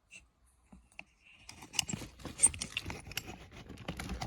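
Handling noise: a few separate light clicks, then from about a second and a half in, a dense run of clicking, clattering and rustling of small hard objects.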